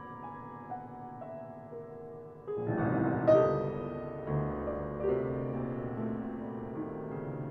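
Solo piano playing contemporary classical music. A quiet line of single notes steps downward, then about two and a half seconds in a loud, full chord strikes and rings on, with further notes moving within it.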